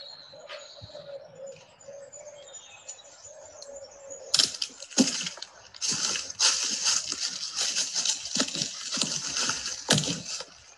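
Forest soundscape: faint bird chirps over a low steady hum, then about four seconds in a loud, dense crackling and rustling starts suddenly and runs for some six seconds.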